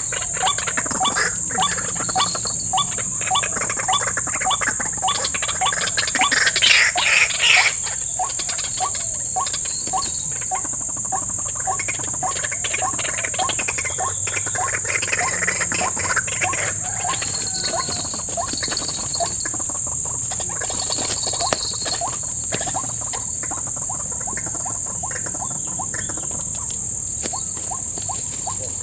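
Swamp insects, crickets or similar, trilling in a steady high-pitched drone, with many short calls repeating quickly lower down, busiest in the first half.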